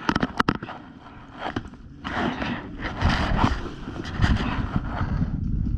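A few sharp clicks in the first half second. From about two seconds in comes rough rustling and scraping with low thumps, typical of a player moving on foot with gear brushing against a body-worn microphone.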